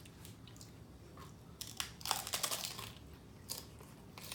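Crunchy crackling of a hard taco shell being bitten and chewed close to the microphone: a dense burst of crunching about two seconds in lasting about a second, with a few lighter clicks before and after.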